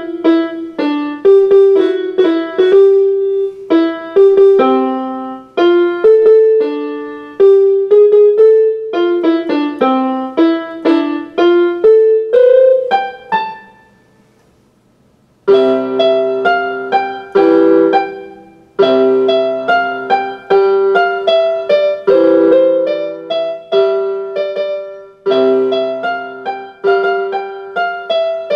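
Small electronic keyboard with a piano sound playing a tune note by note, each note fading after it is struck. The playing stops for about two seconds near the middle, then resumes with fuller chords over low bass notes.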